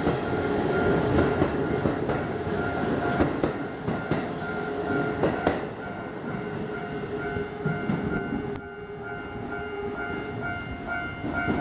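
Keisei 3600 series electric train pulling out and running past, its wheels clicking over the rail joints, then fading away about six seconds in as the last car leaves. After that a high beep repeats about one and a half times a second.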